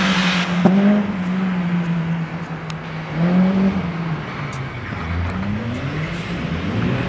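Peugeot 206 hatchback's engine revving hard through tight turns, its pitch rising and falling several times, with a tyre squeal fading out in the first half second.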